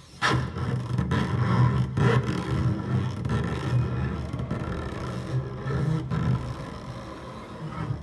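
Double bass laid flat and bowed hard, giving a low, rough, scraping drone. Fresh bow strokes cut in about once a second during the first couple of seconds.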